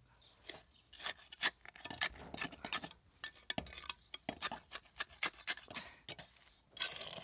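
Irregular scraping, knocking and clinking of wet cement being poured and worked into a gap by hand.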